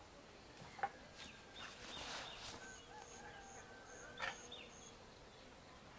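Faint clicks and knocks from a child's stroller being handled and worked on by hand, the sharpest about a second in and another about four seconds in. Behind them, quiet outdoor ambience with a high short chirp repeated about twice a second through the middle.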